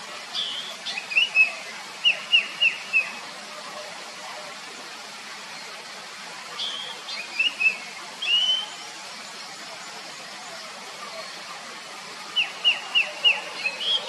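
Oriental magpie-robin singing three loud phrases of clear whistled notes a few seconds apart. Each phrase ends in a quick run of four or five sharp, down-slurred whistles.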